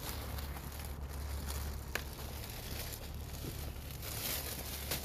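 Leaves and twigs of an Indian jujube tree rustling and crinkling close to the microphone, with one sharp snap about two seconds in and a low steady rumble underneath.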